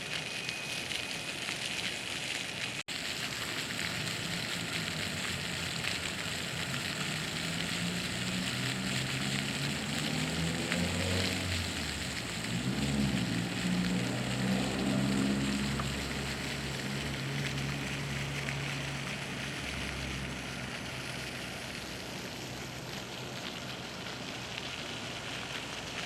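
Park water fountain splashing, a steady hiss of falling water. Midway an engine passes, swelling to its loudest around the middle and then fading away.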